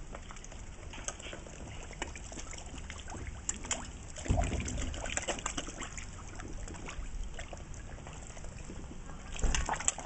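Pond water splashing and slurping at the surface as black swans dip their bills in and koi gulp at the surface around them, with many small wet clicks and two louder bursts, about four seconds in and near the end.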